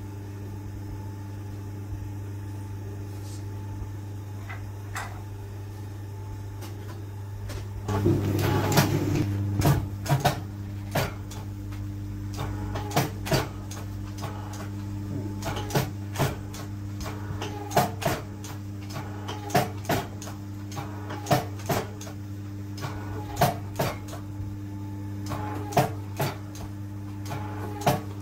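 Forging press working a red-hot steel billet for a knife blade: a steady electric hum, a rush of noise about eight seconds in, then sharp metallic knocks about once a second as the die comes down on the hot steel.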